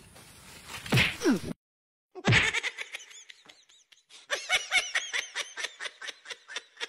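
Slapstick comedy sound effects: a short falling sound about a second in, a sharp thump just after two seconds, then a run of ha-ha laughter, about four laughs a second.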